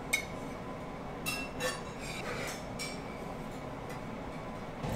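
Ceramic plate clinking as diced shiitake mushrooms are pushed onto it by hand. There is one sharp ringing clink at the start and a few lighter clinks about a second and a half in.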